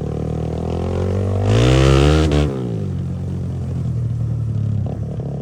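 Motorcycle engine riding over a rough dirt track: it revs up about a second and a half in and drops back a second later, then runs steadily.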